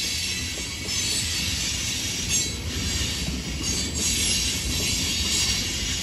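Freight train of tank cars rolling past close by: a steady low rumble of steel wheels on rail under a high hiss that swells now and then.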